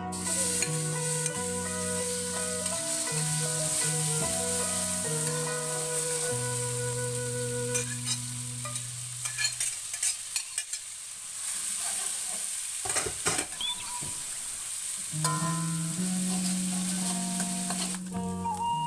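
Chili spice paste and leaves sizzling in hot oil in an aluminium wok, with a metal spatula clicking and scraping as the paste is scraped off the plate and stirred. Background music with plucked notes plays over most of it, dropping out for a few seconds in the middle.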